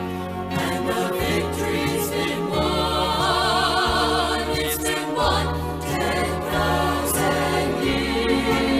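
Gospel song with choir: voices holding notes with vibrato over an accompaniment with sustained bass notes.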